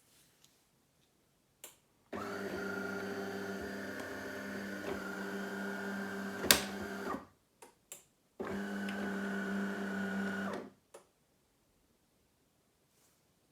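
De'Longhi Magnifica ESAM4200.S bean-to-cup coffee machine running its motor or pump in two steady humming spells, about five seconds and then about two seconds long. A sharp click comes near the end of the first spell, and a few lighter clicks follow each one.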